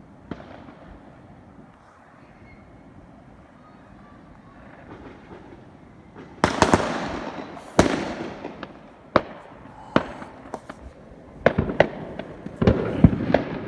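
Fireworks going off: after a few seconds of quiet background, a loud bang about halfway in, then a string of sharp bangs with crackling tails that come closer together near the end.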